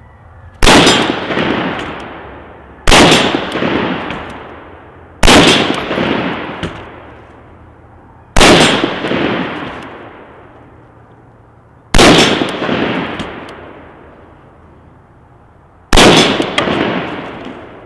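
Six single rifle shots from an AR-15-style carbine, spaced unevenly two to four seconds apart as the shooter changes firing positions. Each crack is followed by a long echo that dies away over two seconds or more.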